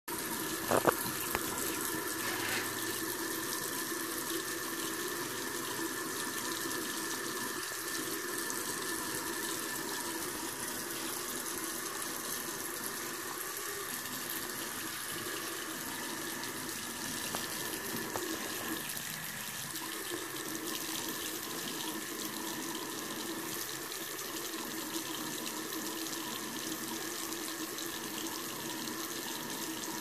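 Bathroom sink faucet running a thin, steady stream of water that splashes onto the drain stopper and swirls into the drain. There are two sharp clicks about a second in.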